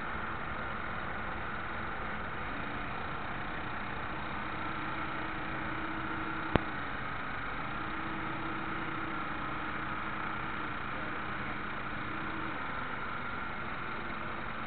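Running gear of a radio-controlled model destroyer heard from its own deck: a steady drive-motor whine and hiss, with a lower hum that joins about two seconds in and drops out near the end. One sharp click comes about halfway through.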